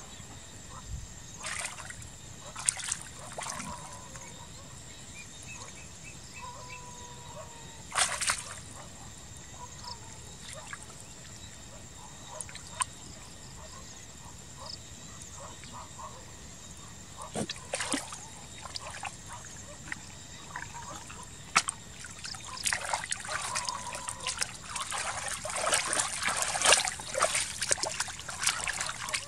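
Hands sloshing and splashing in shallow muddy water while groping through the mud for fish, in scattered bursts that grow busier and louder near the end.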